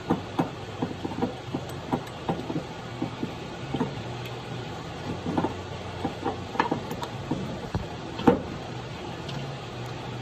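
Irregular clicks and knocks of hand tools and metal parts being worked on a riding mower's idler pulley assembly, about two or three a second, the loudest one about eight seconds in. A low steady hum runs underneath.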